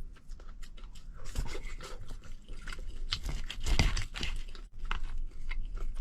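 Close-up chewing and crunching of crispy scorched rice crust (guoba) from the bottom of a claypot, with irregular crackling bites, the loudest a little under four seconds in.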